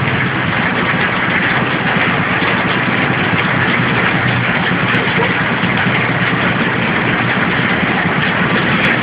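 A bread flow-wrap packing machine running steadily, giving a dense, even mechanical noise.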